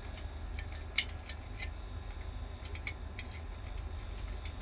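Scattered light clicks and ticks from hands working the plastic humidifier bottle screwed under an oxygen flow meter, over a steady low hum.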